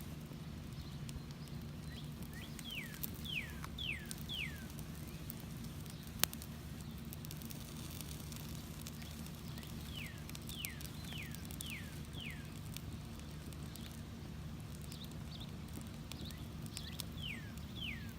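Melting plastic of an old truck horn crackling in a small fire, with fine ticks and one sharp pop about six seconds in, over a steady low hum. A bird calls three times, each a quick run of four or five descending whistled notes.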